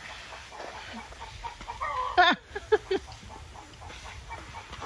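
Chickens clucking, with one loud call about two seconds in and a few short clucks soon after.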